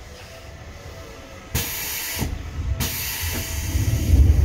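Seibu 2000 series electric train's underfloor equipment releasing compressed air: a sudden sharp hiss about a second and a half in, then a second longer hiss, while a low rumble builds near the end.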